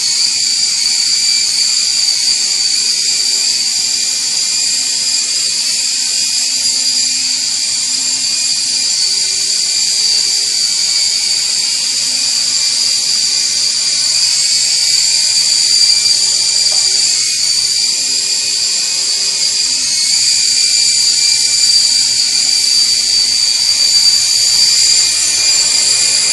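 Toy RC helicopter's small electric motors and rotors running with a steady high-pitched whine and a faint low hum beneath it.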